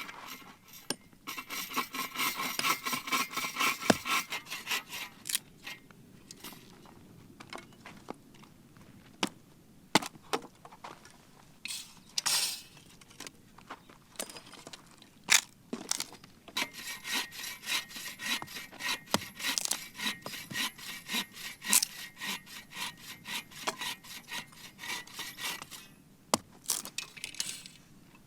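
A hand saw cutting through wood with rapid back-and-forth strokes in two long bouts, separated by a pause with a few sharp knocks. The wood is firewood for a campfire.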